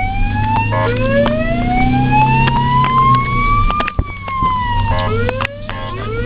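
Ambulance siren wailing in slow rising sweeps. The longest climbs for about three seconds and then falls away, and short stepped blips come between the sweeps. A steady low vehicle hum runs underneath.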